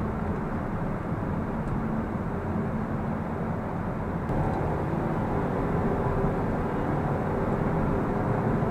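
Steady in-cabin driving noise of a BMW X1 (F48) on the move: engine hum and tyre and road noise heard from inside the car.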